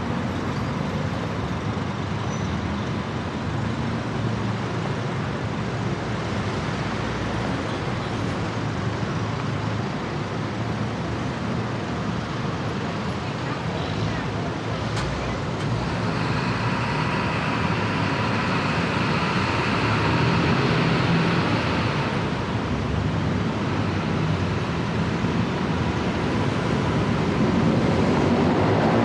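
Busy city-road traffic: cars, trucks and motorbikes passing in a steady rumble. The traffic grows louder and brighter for several seconds past the middle.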